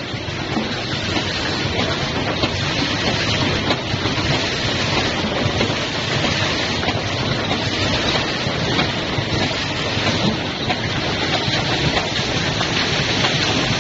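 Steady machine noise of a PVC tape packing line running: the tape-roll feeder bowl, conveyor and shrink packing machine make an even din.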